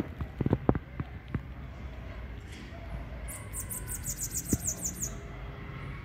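A very high-pitched rapid trill of about a dozen quick falling notes, from a small animal, starting about three seconds in and lasting under two seconds. A few low knocks come near the start, over a steady low rumble.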